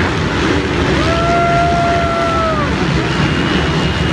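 Motocross bikes racing on a dirt track, a dense mix of engine noise; about a second in one bike holds a steady high note for about a second and a half, then falls in pitch.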